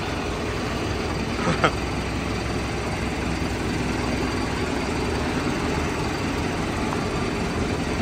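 New Holland TD5.90 tractor's diesel engine running steadily at low speed as it creeps forward towing a loaded wheat trolley. A single short knock sounds about a second and a half in.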